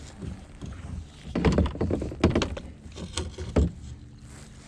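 Knocks and bumps against a plastic fishing kayak's hull, a cluster of several sharp thunks between about one and a half and three and a half seconds in.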